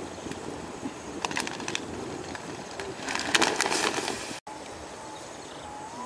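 Outdoor cooking over an open fire: a steady hiss with two bursts of crackling clicks, the second louder, and a brief dropout about four and a half seconds in.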